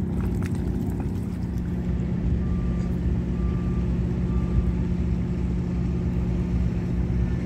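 Boat engine running steadily at low speed, a continuous low drone. Three short faint beeps sound a little before the middle.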